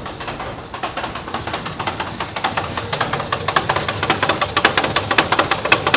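Fiat Uno 1.3 idling from a cold start with a loud, rapid rattle from inside the gearbox that builds up about a second in and keeps growing louder. The rattle comes only while the engine is cold, and the owner puts it down to the cold engine's vibration.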